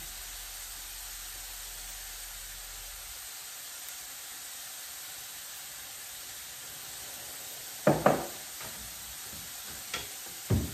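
Potatoes frying in oil in a frying pan: a steady, soft sizzle. A couple of short knocks come about eight seconds in and again near the end.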